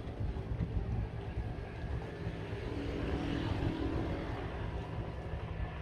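Boat engine running at the harbour, a steady low drone, with a higher hum swelling about three seconds in.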